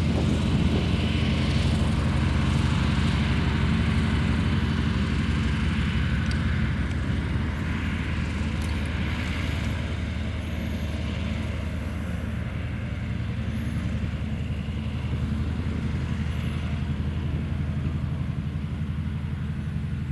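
Antonov An-2's nine-cylinder Shvetsov ASh-62 radial engine and propeller running steadily as the biplane taxis on grass. The sound eases a little after about six seconds as the aircraft moves away.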